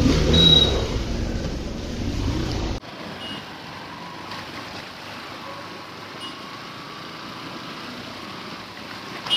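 Motorbike ride heard from the pillion seat: wind buffeting the phone microphone over the running engine, cut off sharply about three seconds in, then a quieter steady hum of the bike running on the road.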